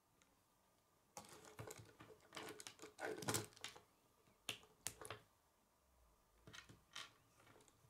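Plastic K'nex pieces clicking and rattling as they are handled and the flexible rods are fitted to connectors: a run of rapid clicks from about one to four seconds in, then a few sharp single clicks.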